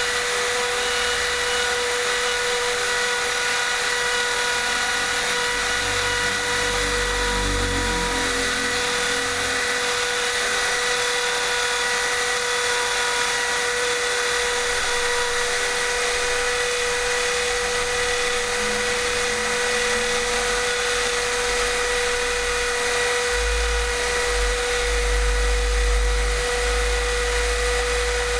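Mini CNC router's spindle running with a steady high whine over a constant hiss as it mills a Rowmark engraving-plastic sheet. Low hums that shift in pitch come in about a quarter of the way through and again near the end, from the machine's axis motors moving.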